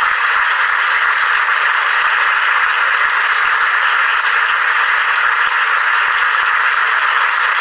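Audience applause: a dense, steady clapping that keeps an even level.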